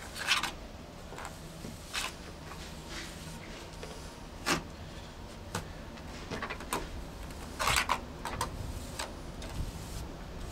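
Wet fibre-reinforced sand and masonry-cement mortar being scooped by hand from a plastic bucket and rubbed onto a pond wall: a string of short, irregular scraping strokes.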